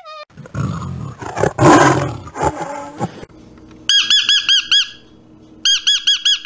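Animal calls: a harsh, noisy cry in the first three seconds, then two bursts of rapid, evenly repeated chirping notes, about eight a second.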